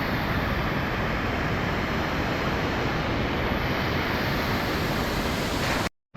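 Steady rush of flowing creek water, even and unbroken, cutting off suddenly near the end.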